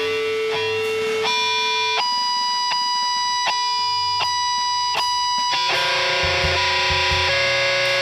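Improvised live music: a hollow-body electric guitar played through effects, holding long sustained notes that change pitch every few seconds, with a drum kit. Sharp clicks about every three quarters of a second sound over the held notes in the middle, and low drum thumps come in near the end.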